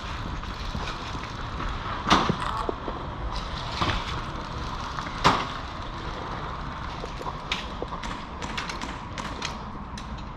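Steady low rumble with a few sharp snaps, the two loudest about two and five seconds in, then a run of lighter clicks near the end.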